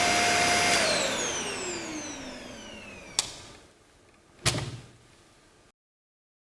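Dyson Small Ball upright vacuum's motor running with a steady whine, then switched off under a second in and winding down, its pitch falling steadily as it slows. A sharp click and then a heavier knock follow.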